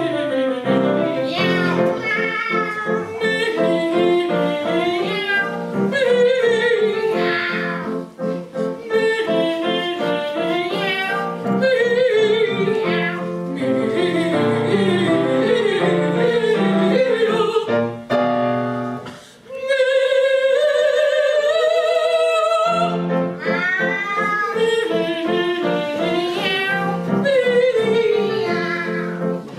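Operatic duet sung with vibrato over piano accompaniment. About two-thirds of the way through, the accompaniment drops out and one voice holds a single rising note alone for a few seconds before the piano comes back in.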